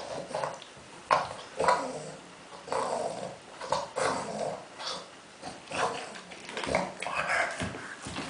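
French bulldog making pig-like noises while playing, a string of short rough sounds about one a second.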